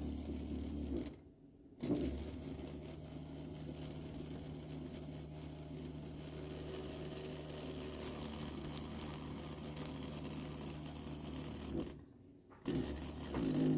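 Old fire alarm sounding with a steady electrical buzz and low hum. It cuts out briefly about a second in and again near the end, an intermittent fault the owner puts down to a loose wire.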